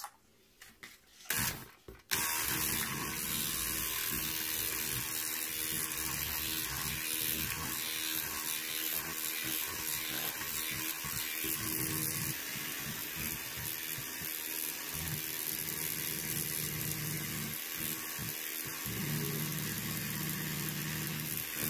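A Bosch electric hand mixer switches on about two seconds in and runs steadily, its wire whisk beaters whipping cream in a plastic bowl. A few light clicks come just before it starts.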